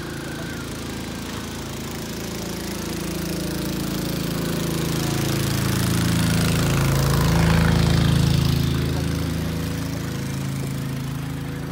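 A boat engine chugging steadily, growing louder to a peak about two-thirds of the way through, then easing back.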